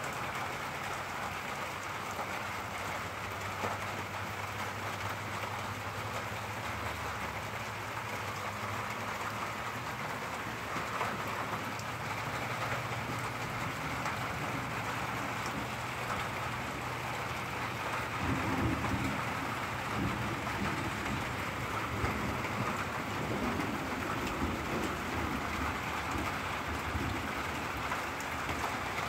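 Steady rain falling in a thunderstorm, with a low rumble of thunder rolling in about two-thirds of the way through.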